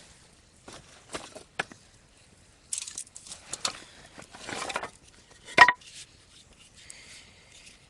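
Irregular snaps, scraping and rustling of sticks and firewood being handled at a wood campfire, with one sharp ringing clink about five and a half seconds in.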